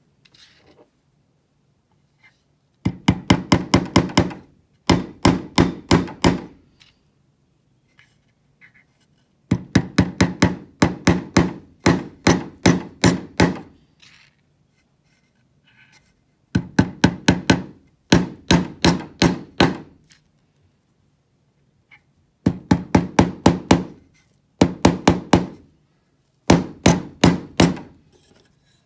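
Hammer tapping steel nails into a wooden board: seven runs of quick, light, evenly spaced taps, about five or six a second, each run broken off by a short pause.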